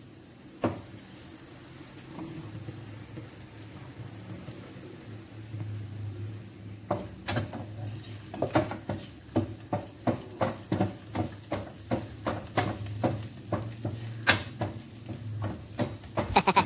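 Wooden spatula stirring and scraping food sizzling in a stainless steel pan, with short scrapes and knocks about twice a second from about seven seconds in. A single sharp knock comes under a second in, over a steady low hum.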